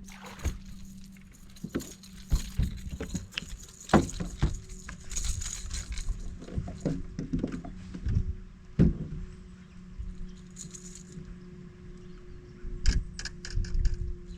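Irregular rattling, clicks and knocks of fishing gear being handled, with a quick run of ticks near the end, over a steady low hum.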